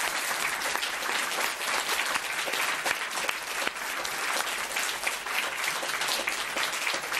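Audience applause, a dense steady patter of many hands clapping, after the song has ended.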